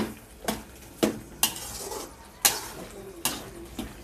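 Steel spoon stirring and scraping a bottle gourd and tomato curry in a metal kadhai, with sharp clinks against the pan about seven times, spaced unevenly, over a light sizzle from the pan on high gas.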